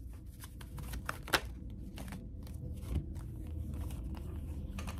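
Tarot cards being gathered up and handled on a table: soft papery slides and light flicks, with a sharper card tap about a second and a half in.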